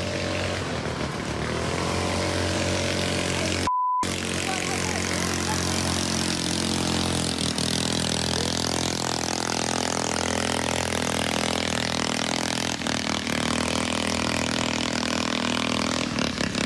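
Motorboat engine revving hard as the boat speeds along the canal, loud and steady, its pitch rising over the first couple of seconds. About four seconds in, the engine sound cuts out briefly under a short beep.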